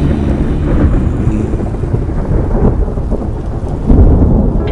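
Thunderstorm ambience: steady rain with low rolling thunder, the loudest rumble swelling about four seconds in.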